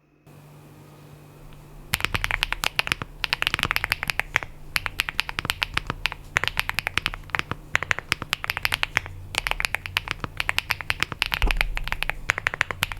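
Raindrops falling in quick, irregular ticks and taps, starting about two seconds in and carrying on, over a faint low hum.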